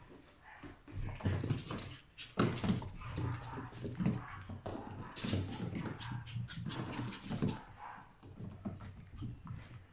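Chihuahua puppy making short whimpers and yaps in irregular bursts while it plays, mixed with sharp clicks and knocks.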